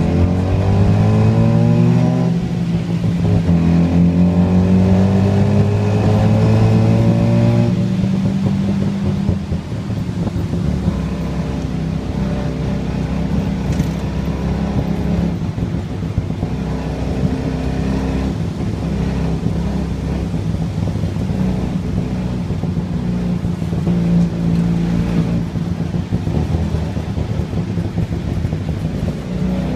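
Tuk-tuk engine heard from inside the open passenger cab, rising in pitch as it accelerates through the gears, easing off about eight seconds in to a lower, rougher steady run, and picking up again near the end.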